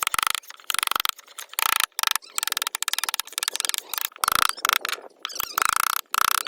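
Hand carving tool scraping and cutting into wood in short, repeated, irregular strokes, each stroke a gritty rasp of fine rapid clicks.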